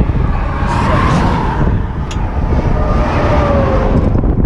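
Roadside traffic: a vehicle passes on the road with a tyre whine that falls in pitch about three seconds in, over a steady low rumble. A single light click comes about two seconds in.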